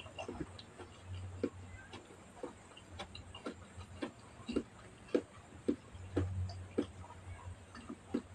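A person chewing a mouthful of food up close, with wet mouth clicks and lip smacks about twice a second over a faint low hum.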